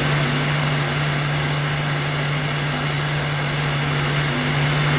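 Heat gun running steadily on its hot setting, blowing onto heat-shrink tubing: a constant rush of air with a low steady hum.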